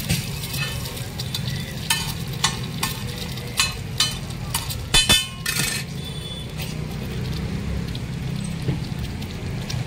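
Oil sizzling on a large flat tawa as peeled boiled eggs fry, with a steel spatula scraping and clinking against the griddle while it pushes the eggs together. There is a run of sharp scrapes between about two and six seconds in, loudest around five seconds, over a low steady hum.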